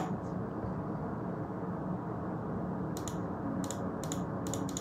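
Computer keyboard typing: a quick irregular run of key clicks in the second half, over a steady low background hum.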